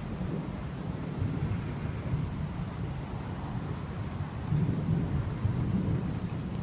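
Steady rain falling, with a low rumble of thunder underneath that grows louder a little past halfway.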